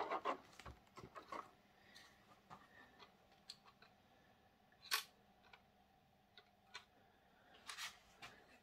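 Faint, scattered small clicks and taps from handling a plastic model railway coach and its packaging, with a sharper click about five seconds in and a few more near the end.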